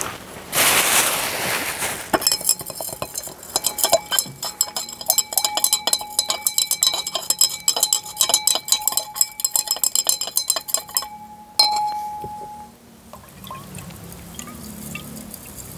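Glass stirring rod clinking rapidly against the inside of a glass laboratory beaker, stirring urea into water to dissolve it. The clinks ring with a steady glassy tone and stop with one last sharp clink about two-thirds through. Just before the stirring starts, water splashes briefly into the beaker.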